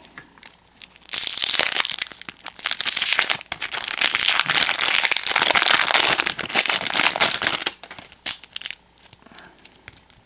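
Plastic wrapper of a baseball card pack crinkling and tearing as it is opened. The noise is loud from about a second in until nearly eight seconds, then drops to a few light crackles and clicks.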